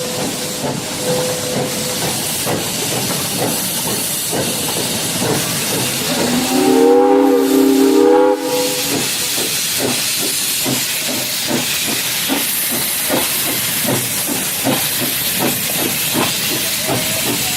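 Steam locomotive hissing steam, with its exhaust beating about twice a second, and a multi-tone steam whistle blowing for about two seconds roughly seven seconds in.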